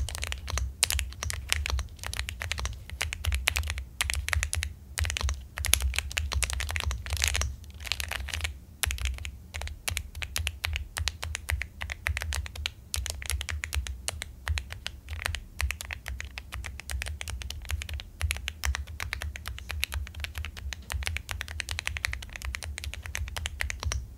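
Typing sound test on a Monka K75, a 75% aluminium mechanical keyboard: fast, continuous keystrokes giving a dense, even run of key clacks.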